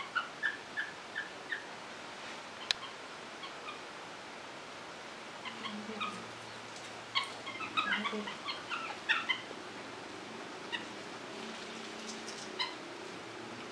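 Capuchin monkeys calling with short, high squeaky chirps: a quick, even run of about six at the start, a dense cluster a few seconds later, and a few scattered ones near the end. There is one sharp click a few seconds in.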